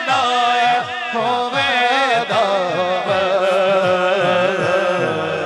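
A man's voice singing a naat, holding out a long, ornamented melismatic phrase without clear words over a steady low drone.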